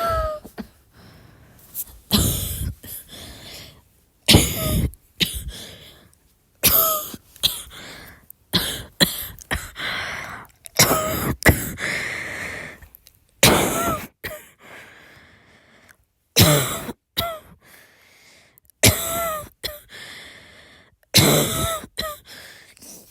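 A woman's dry cough, coming again and again in short fits of one or two coughs every second or two, many of them with a brief catch of voice.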